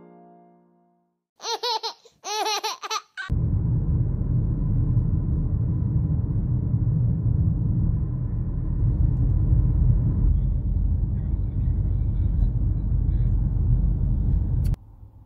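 A young child's high-pitched laughing squeals for about two seconds, then the steady low rumble of a car's road and engine noise heard inside the cabin while driving. The rumble cuts off abruptly near the end.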